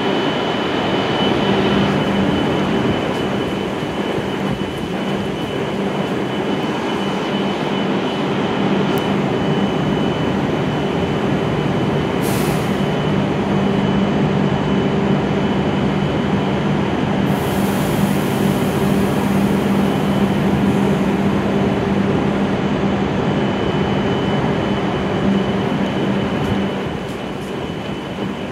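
A stationary E7 series shinkansen standing at the platform with doors open, its onboard equipment giving a steady low hum and a thin high whine. A short hiss comes about twelve seconds in and a longer one from about seventeen to twenty-one seconds.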